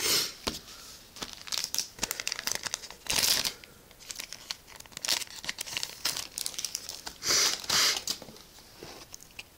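Cardfight!! Vanguard booster pack wrapper being crinkled and torn open by hand: several short, loud crinkling bursts with lighter crackling between them.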